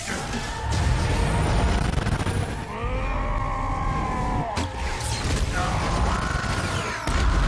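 Action-film fight sound mix: deep rumbling and crashing impacts under a man's drawn-out straining yells, the first about three seconds in. A heavy low boom comes near the end.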